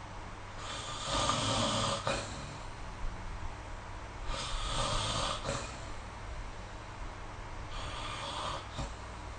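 A sleeping person snoring: three breathy snores about three and a half seconds apart, the last one weaker, over a steady low hum.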